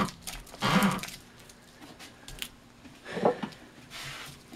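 Spiking twine rasping and rubbing against the paper casing of a large cylinder firework shell as it is pulled taut: a scrape about half a second in, a few light rubs, and a sharper snap of the cord a little past three seconds.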